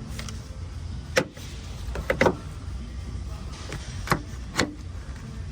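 Several sharp knocks and clicks from hand work on the vehicle: one about a second in, a quick double knock near the middle, and two more near the end, over a steady low hum.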